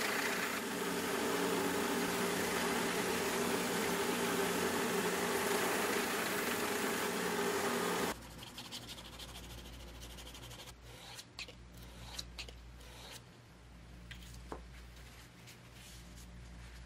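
Small belt grinder running with a steel knife blade held against the belt: a steady grinding hiss over a motor hum for about eight seconds, which then cuts off sharply. Afterwards only light clicks and taps of the blade being handled remain over a low hum.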